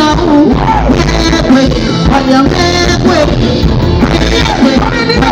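Live soca performance: a woman sings into a microphone over a live band, played loud through the stage PA.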